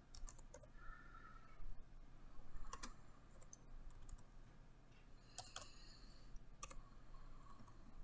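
Faint, scattered computer keyboard keystrokes typing out a short word slowly, one key at a time.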